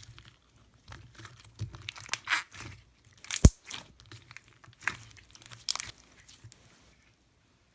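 Slime being squeezed and stretched by hand, giving irregular crunchy crackles and pops. The sharpest pop comes about three and a half seconds in, and the sounds stop about seven seconds in.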